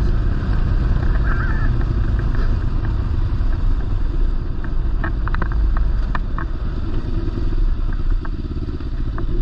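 Kawasaki Versys-X 300 parallel-twin engine running steadily as the motorcycle rides a dirt trail, under a heavy low rumble of road and wind noise. A few short clicks and clatters come about five to six seconds in.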